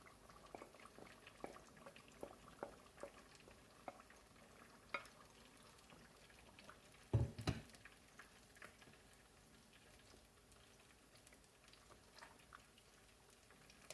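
Tomato and pepper stew being stirred and cooking in a pot: faint scattered clicks and small plops, with two louder knocks a little past the middle.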